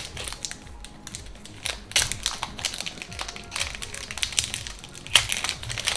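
Crinkling of a foil booster-pack wrapper and rustling of Pokémon trading cards being handled, in a string of sharp crackles and clicks. Two louder crackles come about two seconds in and near the end.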